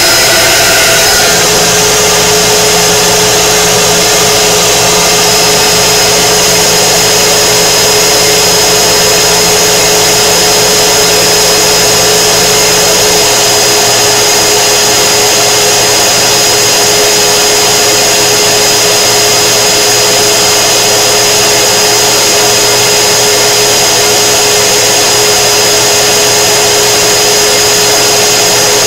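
K-40 laser cutter's fans and air-assist pump running with a loud, steady whir and a thin high whine. A set of mid-pitched motor tones stops about a second in, and a low hum drops out a little before halfway.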